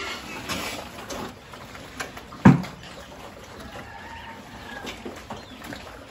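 A group of pigs feeding at a trough, chomping and slurping, while feed is tipped in from a bucket at the start. One short, loud grunt stands out about two and a half seconds in.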